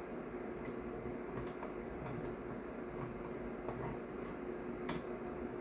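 A few faint scattered clicks and ticks of a screwdriver and rifle parts being handled, with one sharper click about five seconds in, over a steady low hum.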